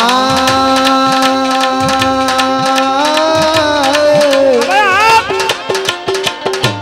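Gujarati devotional folk music: a singer holds one long note, sliding up into it at the start and breaking into a wavering ornament about five seconds in before stopping, over steady tabla playing with sliding bass-drum strokes.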